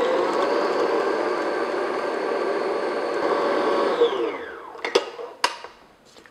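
Electric stand mixer with a paddle attachment beating butter and sugar batter, its motor running at a steady pitch. About four seconds in it is switched off and the motor winds down, and then come two sharp clicks.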